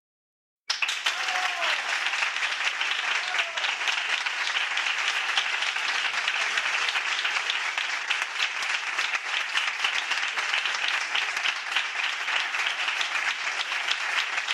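Crowd applauding, starting suddenly about a second in as a dense, steady clatter of clapping. A couple of brief whoops rise out of it in the first few seconds.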